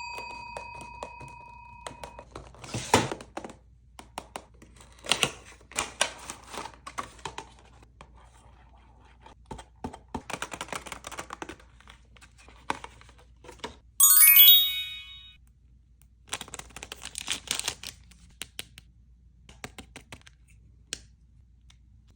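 Toy packaging being torn open and crinkled in irregular bursts. A bell-like ding rings and fades at the start, and a short chime climbing in steps sounds about two thirds of the way through.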